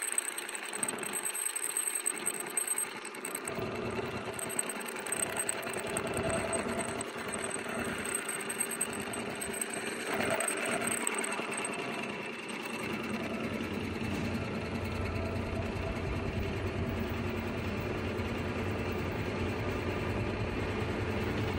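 Ultrasonic satin-ribbon label cutting machine running, feeding and cutting ribbon into care labels that drop onto its conveyor belt: a steady mechanical running noise. A low hum joins about halfway through.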